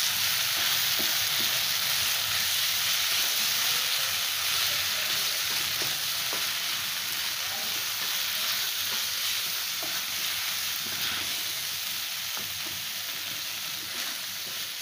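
Spiced onion-tomato masala sizzling in oil in a nonstick pan as a spatula stirs and scrapes it round, with light scattered scrapes; the masala is being fried down (bhuna) until cooked. The sizzle slowly gets quieter.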